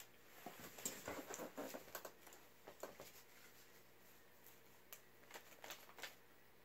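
Faint rustling and small ticks of paper banknotes being handled.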